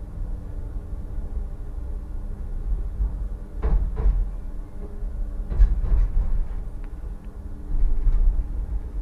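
Solaris Tramino S105p tram running along the track, heard inside the driver's cab: a steady low rumble with a faint motor hum, broken by a handful of sharp knocks and rattles from about the middle on.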